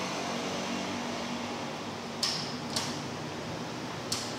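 Sharp snapping clicks of miniature circuit-breaker toggles being flipped in a small breaker panel, two about half a second apart around the middle and another near the end, over a steady fan-like hum.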